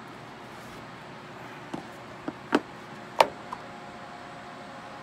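A handful of short, sharp knocks and clacks, the loudest about three seconds in, over a steady background hiss.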